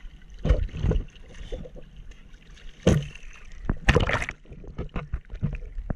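Seawater splashing and sloshing right against a surfer's action camera, in a few separate splashes; the longest and loudest comes about four seconds in as the camera dips under the water.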